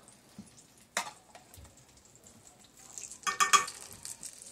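A spoon clinking against a garlic jar and a glass baking dish while minced garlic is spooned into melted butter. There is a sharp tap about a second in, a few light ticks, then a short cluster of clinks and knocks near the end.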